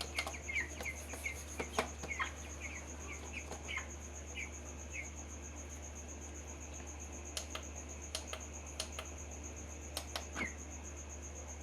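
Broiler chicks peeping in short high chirps, many in the first few seconds and then only now and then, over a steady high-pitched whine and a low hum. Several sharp clicks come in the second half.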